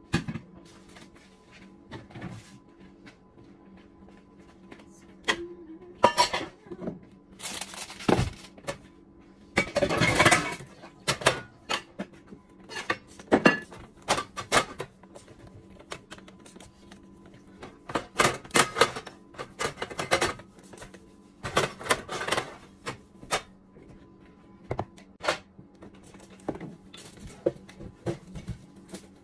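Household kitchen cleaning: irregular clatter and knocks of stove burner covers and cookware being lifted and set down on an electric stovetop, with a few short bursts of sponge scrubbing and cleaner spray.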